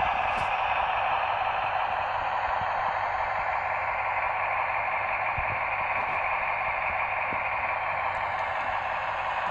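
Märklin H0 model SVT 04 diesel railcar running along the track: a steady whirring noise from the wheels and motor, easing off slightly as it moves on.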